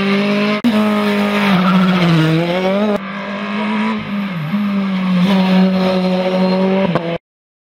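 Single-seater race car engine running at high revs, its pitch dipping briefly twice and climbing again. The sound jumps abruptly twice and cuts off suddenly near the end.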